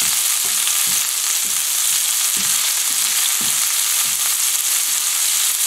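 Cod fillet and chopped garlic sizzling in hot oil and butter in a frying pan, a steady high hiss as the garlic toasts. A slotted fish spatula stirring through the pan adds soft, irregular strokes.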